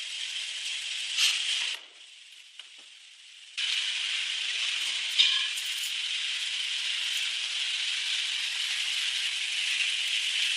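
Wood being ripped lengthwise by a power saw, a steady hiss of cutting that stops for about two seconds near the start and then starts again abruptly.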